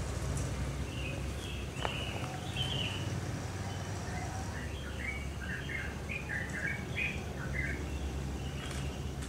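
Small birds chirping: scattered short, high calls in two loose flurries, over a steady low rumble.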